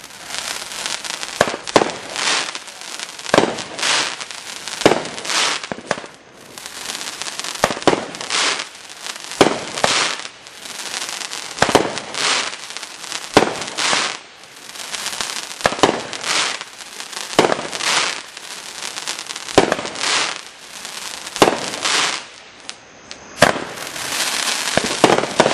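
200-gram consumer fireworks cake firing shot after shot, about one sharp report a second, with a steady hissing haze between the shots.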